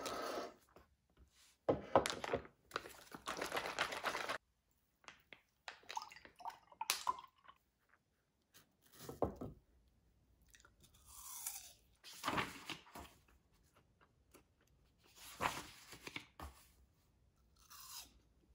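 Close-up eating sounds: crisp apple slices crunched and chewed in several separate bursts, with short quiet gaps between bites.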